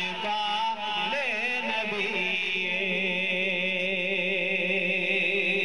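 A man's voice chanting a naat melodically through a microphone and loudspeaker, with ornamented turns in the first couple of seconds, then holding one long wavering note from about two seconds in.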